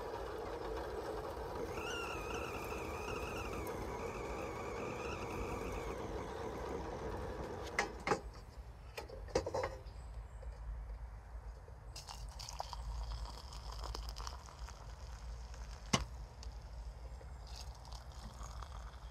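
Whistling kettle heating on a portable gas canister stove: a steady burner-and-near-boil hiss with a faint, wavering whistle from about two seconds in. A few sharp clicks and knocks follow as the kettle is handled. Near the end hot water is poured from it into an enamel mug.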